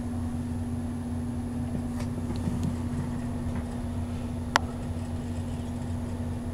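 Steady low mechanical hum with a constant tone, with one sharp click about four and a half seconds in.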